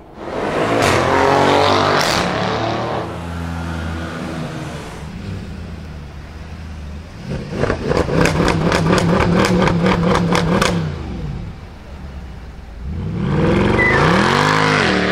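Car V8 engines: one accelerating hard at the start, then a Mercedes C63 AMG Black Series V8 held at high revs for about three seconds with a rapid stuttering crackle, about five pops a second, before the revs drop. Near the end there is one more rev that rises and falls.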